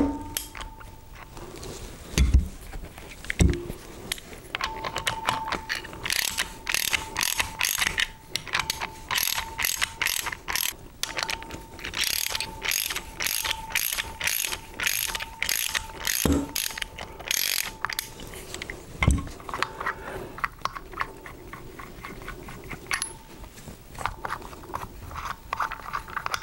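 Socket ratchet wrench clicking in quick runs as the rotor bolts of a stainless steel lobe pump are backed off, with a few dull knocks in between.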